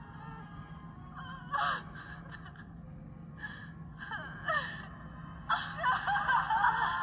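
A woman sobbing and crying out in short, gasping wails that fall in pitch. Near the end they become almost continuous crying.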